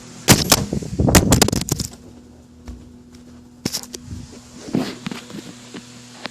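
A loud crash and clatter of impacts lasting about a second and a half, followed a couple of seconds later by a few lighter knocks: a phone knocked over and falling hard.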